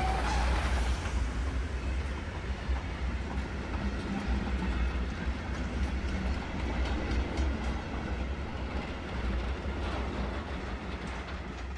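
Goods wagons of a steam-hauled freight train rolling past close by: a steady heavy rumble with wheels clicking over rail joints. A steam locomotive whistle dies away just after the start.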